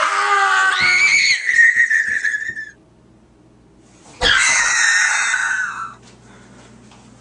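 A young man screaming: a long, loud scream that rises in pitch about a second in and cuts off at under three seconds. After a short gap, another loud burst of screaming starts suddenly with a click about four seconds in and stops near six seconds.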